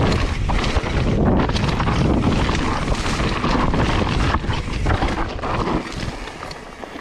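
Wind buffeting the microphone over the rumble and crunch of mountain-bike tyres rolling fast down a dry dirt trail with loose stones. The rush drops off about six seconds in.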